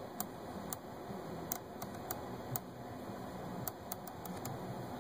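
Scattered light clicks and taps, about ten in all, from small cables and connectors being handled, over a steady background hiss.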